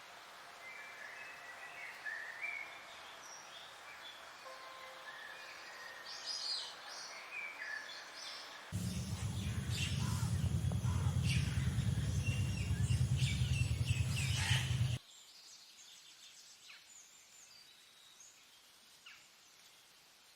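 Forest birds calling and chirping, several short call notes and trills over a steady background. About nine seconds in, a loud low rumble cuts in abruptly, runs for about six seconds under the calls, then cuts off; after that only sparse calls remain.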